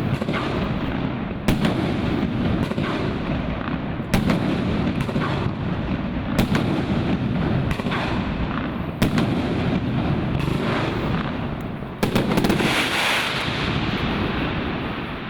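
A 2-inch, 25-shot cake firework going off: sharp shots every two to three seconds over a continuous rumble of bursts. A brighter, hissier stretch comes about twelve seconds in, and the sound fades near the end as the cake finishes.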